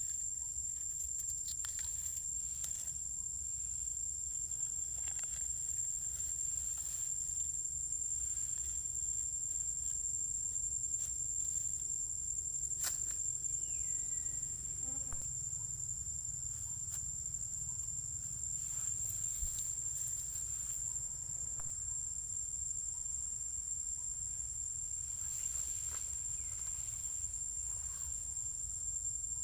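Insect chorus: a steady, high-pitched whine that holds unbroken, with a low rumble underneath and a few faint clicks.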